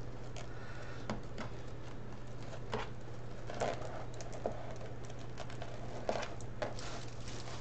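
Deco mesh rustling and crinkling in the hands as it is rolled and worked onto a wreath frame: a few short, scratchy rustles over a steady low hum.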